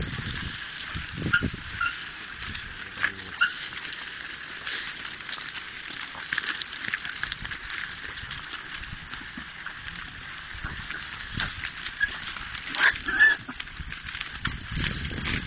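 A herd of wild boar on the move, with scattered short squeals and grunts over a steady rustle; the loudest squeals come about 13 seconds in.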